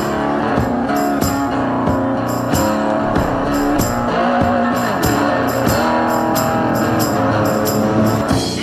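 Background music with guitar and drums playing a steady beat.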